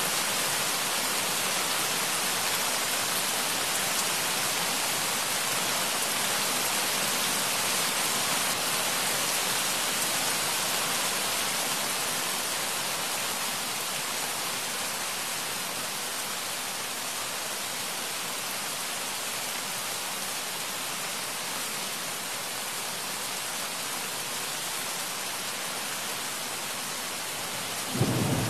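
Steady rain, an even hiss that eases slightly about halfway through; a low rumble of thunder breaks in near the end.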